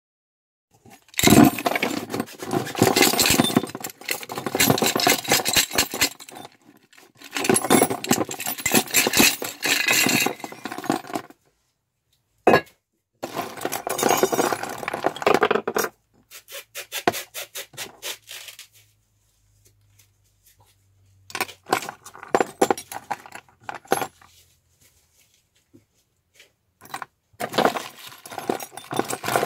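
A heap of loose metal hardware, shackles, buckles, bolts and rings, clinking and rattling as hands rummage through it. The sound comes in bursts of a few seconds with short silent pauses between, starting about a second in.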